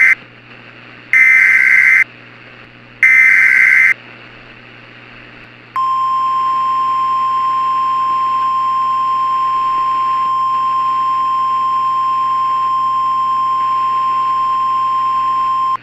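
NOAA Weather Radio Emergency Alert System alert: the end of one SAME header burst and two more digital data bursts, each under a second and about a second apart. About two seconds later comes the steady 1050 Hz warning alarm tone, held for about ten seconds and cutting off sharply. Together they are the signal that an emergency warning message follows.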